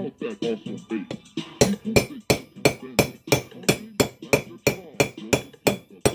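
Hammer striking a spark plug socket to drive a press-fit pilot bearing into a Type 4 flywheel converter. The blows are steady and evenly spaced, about three a second, and begin about a second and a half in.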